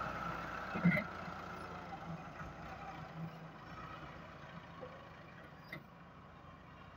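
Massey Ferguson 375 tractor's diesel engine running as it pulls a disc plough through sandy soil, fading as the tractor moves away. A sharp knock about a second in.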